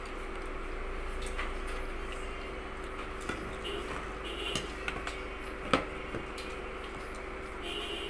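People eating seafood by hand at a table: scattered small clicks and taps, a handful clustered in the middle, the sharpest about two-thirds of the way in.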